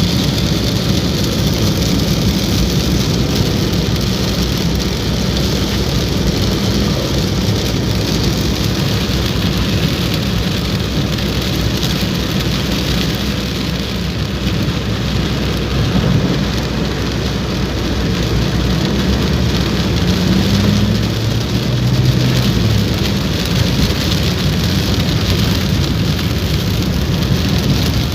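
Heavy rain falling steadily, with a motor vehicle's engine running low underneath it.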